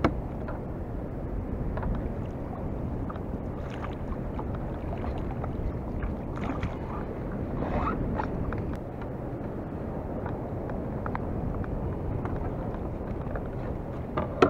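Steady low rushing of wind and sea water around a fishing kayak, with faint knocks of gear on the hull. There is a brief burst of splashing a little past halfway, as a fish is lifted out of the water in a landing net.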